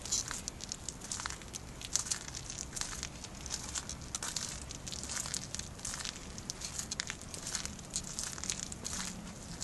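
Light rain falling on an umbrella, a dense run of small irregular drop ticks, with footsteps on a wet paved path.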